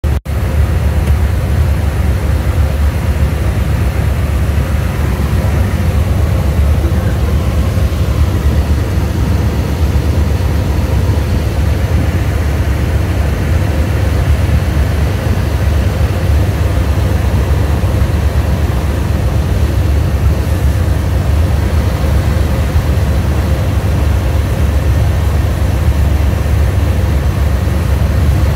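Light single-engine propeller airplane's engine and propeller running steadily in flight, heard from inside the small cockpit as a loud, even, low drone.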